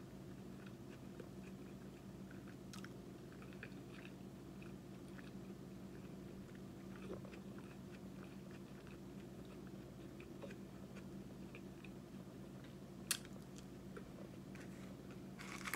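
A person faintly chewing and biting a fried onion ring, with small crunchy clicks, over a steady low hum. One sharp click about 13 seconds in.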